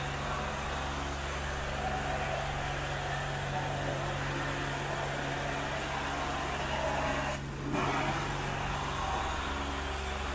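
Carpet extraction wand drawn across the carpet, its suction a steady hiss of air over the extraction machine's even motor hum. The hiss drops out briefly about seven and a half seconds in.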